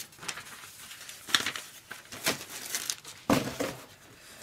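Packaging from a mailed package being crumpled and handled, in several short, irregular rustles.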